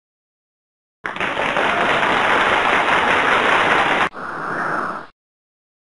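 Drumroll sound effect lasting about three seconds, cut off abruptly, followed by a shorter, softer sound effect of about a second as the answer appears.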